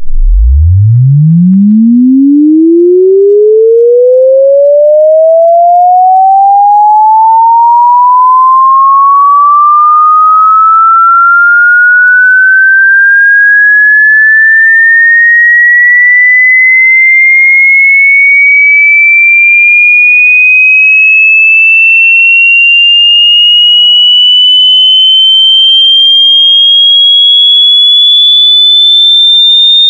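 A pure sine-wave test tone sweeping steadily upward from a deep bass hum to a high whistle at a constant loud level: a frequency sweep played to burn in new speakers and headphones.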